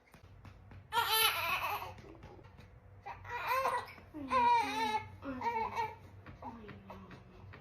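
A baby vocalizing in about five short, pitched bursts, mixing babble, whimpers and laugh-like cries, with faint soft taps or clicks between them.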